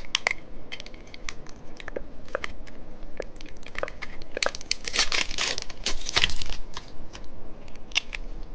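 Plastic candy packaging crinkling and tearing as it is handled and opened. It goes in scattered crackles that thicken into a dense run about halfway through.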